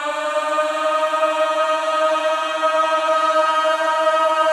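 Eerie horror sound effect: a long, held, choir-like vocal drone, its pitch creeping up slightly at first and then holding steady.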